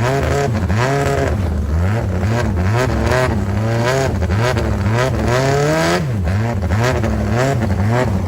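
High-powered longtail racing boat engine revving hard, its pitch climbing and dropping again and again, as when the throttle is blipped up and down.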